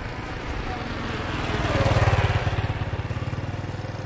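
A motorcycle engine passing close by: its pulsing running sound swells to its loudest about halfway through, then fades as it moves away.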